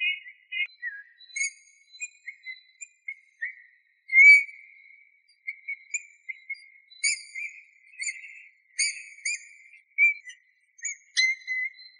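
Eurasian bullfinch singing: a run of short, soft whistled notes near one pitch, mixed with thin higher squeaky notes, the loudest note about four seconds in.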